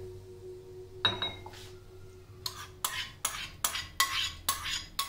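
A metal spoon clinking and scraping against bowls as curd is scraped out onto potatoes and mixed in. There is one ringing clink about a second in, then a run of about eight quick clinks, roughly three a second, from about two and a half seconds in.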